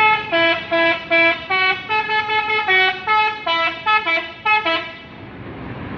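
Telolet horn, the multi-tone musical air horn of an MPM bus, playing a quick tune of short notes at changing pitches. It stops about five seconds in, leaving steady background noise.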